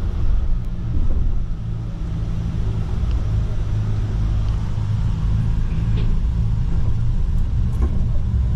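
Coach bus under way: its engine and road noise make a steady low rumble, heard inside the passenger cabin.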